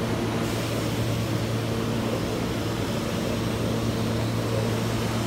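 Steady low hum and rush of a New York City subway train standing at the station platform with its doors open, its on-board equipment running with a constant low drone.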